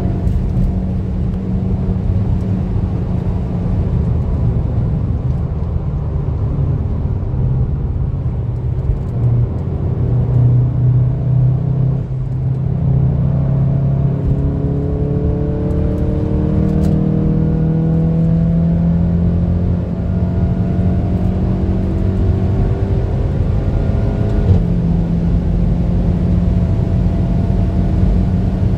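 Tuned VW Golf 7.5 R's turbocharged 2.0-litre four-cylinder engine running hard on track, over a steady low rumble. Its pitch climbs again and again as it accelerates through the gears, with a brief drop about twelve seconds in before it pulls up again.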